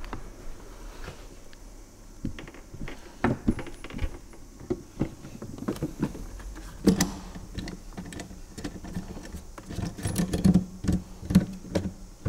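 Hard motorcycle saddlebag being fitted to a Harley-Davidson Street Glide: a string of short knocks and clicks as the bag is handled and set onto its mounts, busier in the second half.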